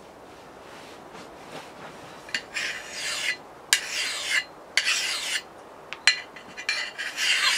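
A flat metal file is drawn by hand along the steel edge of a Collins double-bit axe head. After a quiet first two seconds comes a run of about five rasping strokes, each under a second long, as the dinged-up edge is filed clean before honing.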